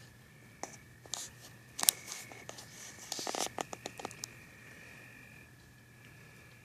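Crickets trilling steadily at a high pitch, overlaid for a few seconds by a cluster of sharp clicks and scratchy rustling close to the microphone; the loudest click comes about two seconds in.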